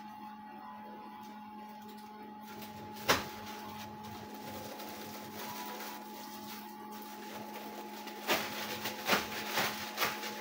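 Cotton candy machine running with a steady motor hum. There is a sharp click about three seconds in and a run of knocks and taps near the end.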